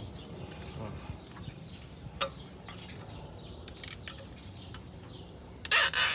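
Brake caliper being handled and hung up out of the way: a sharp metallic click about two seconds in, a few light ticks, then a short loud metal clatter near the end.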